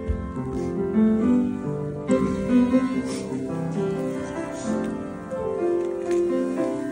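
Grand piano playing a slow introduction of held chords before the singing begins.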